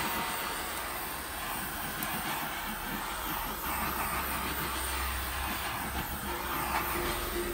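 Handheld gas torch burning with a steady hissing rush as it is passed over wet acrylic pour paint to pop bubbles and bring up cells.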